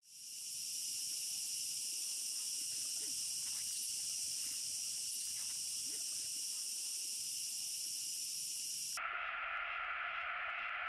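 Steady, high-pitched insect drone, like a cicada or cricket chorus, that fades in over the first second. About nine seconds in it cuts off suddenly and gives way to a lower-pitched steady drone.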